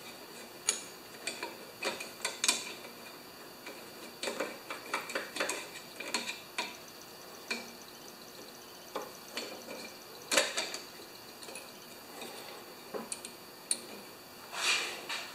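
Screwdriver and small metal parts of a Kohler mower engine's choke linkage being worked by hand: irregular light metal clicks and clinks with some handling rustle, the sharpest click about ten seconds in.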